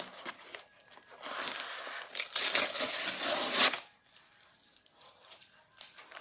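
A shipping package being torn open by hand: a rasping tear lasting a couple of seconds that builds and then stops abruptly, followed by quieter rustling and handling clicks.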